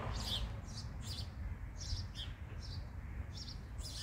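Small birds chirping, short high chirps about twice a second, over a steady low rumble.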